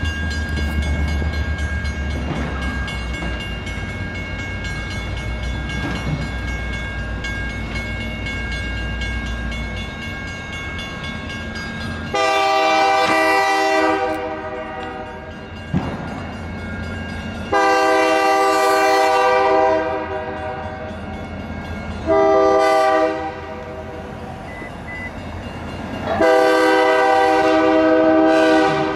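Diesel freight locomotive's air horn sounding the grade-crossing signal: long, long, short, long, the last blast still going at the end. A steady low rumble underlies the first third, before the horn begins.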